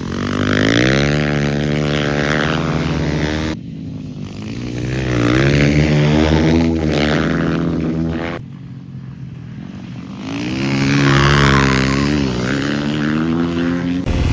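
Flat-track dirt bike engine accelerating hard three times, its pitch climbing each time, with a short drop in between as the throttle is backed off.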